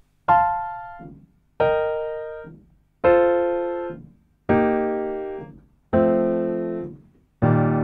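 Piano playing six block triads, one about every second and a half, each struck and left to ring out, stepping lower each time. These are F major in root position alternating with E-flat major in second inversion, a triad pair.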